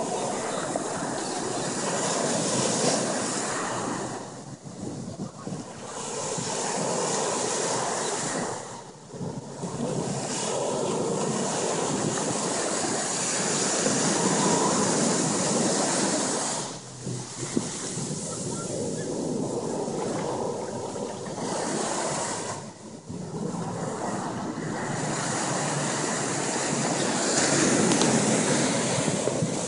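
Ocean surf breaking and washing up the beach, with wind on the microphone. The noise dips briefly several times between waves.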